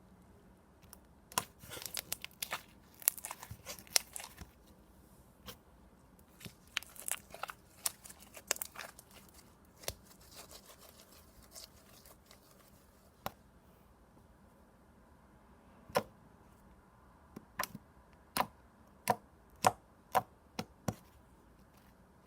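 Thin, glossy slime being squished and stretched by hand, making sharp clicks and pops: dense clusters in the first half, then a string of separate pops near the end.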